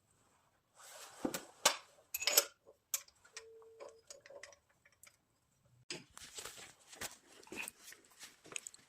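Irregular clicking and metallic clinking of hand tools, such as a ratchet wrench, working on a car's gearbox mount bolts. A short squeak sounds near the middle.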